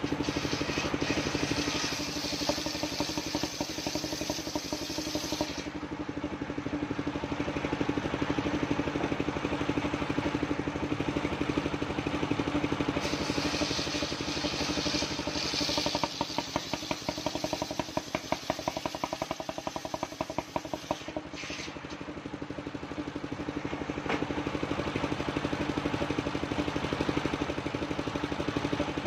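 Engine-driven mobile circular sawmill running steadily. Its blade cuts old coconut wood twice, at the start and again about halfway, adding a loud high hiss over the engine.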